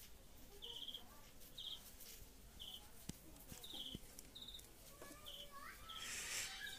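Faint high chirps, each a quick trill, repeating about once a second in the background, with a few light clicks around the middle.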